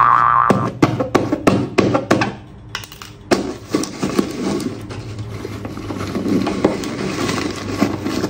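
Paper being peeled off a sheet and crumpled by hand: a run of sharp crackles, then denser steady rustling from about three seconds in.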